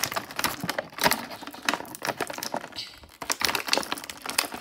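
A clear plastic packaging bag crinkling and crackling as hands handle it, in a run of irregular crackles.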